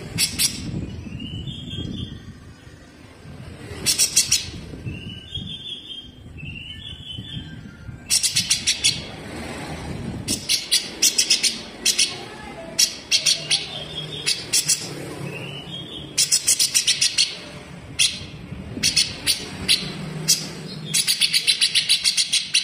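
Grey-cheeked bulbul (cucak jenggot) singing: repeated bursts of rapid, sharp, rattling notes, many a second, mixed with a few short whistled notes.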